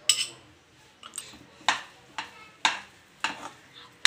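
A steel spoon stirring thick rava kesari in a pan, knocking and scraping against the pan in a series of sharp strokes, roughly every half second.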